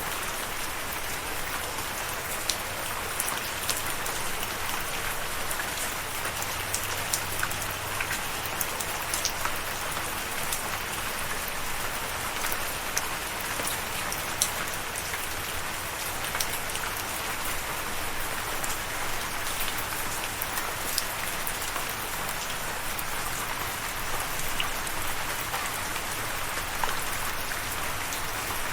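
Steady rainfall, a continuous hiss of rain with many individual drops ticking sharply on a hard surface.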